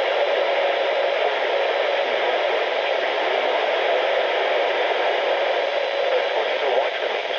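Steady hiss of radio static from a receiver with no voice or alert tones on the channel.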